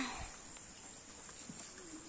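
Steady high-pitched chirring of crickets or other insects, with a short knock right at the start.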